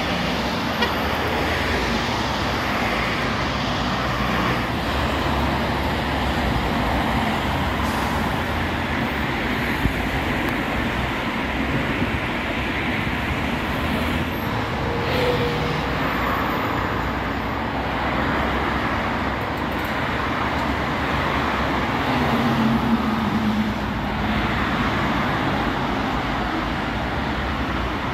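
Steady road traffic on a multi-lane avenue: cars and vans passing continuously, with one vehicle's engine briefly louder late on.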